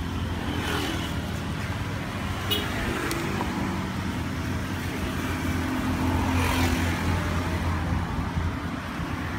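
Road traffic: vehicle engines running steadily with a continuous low hum, and a short sharp click a couple of seconds in.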